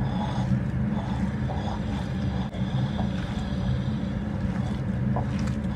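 A steady low mechanical hum, like a fan or motor, is the loudest sound throughout. Faint beneath it are hands mixing and squeezing minced mutton in a bowl.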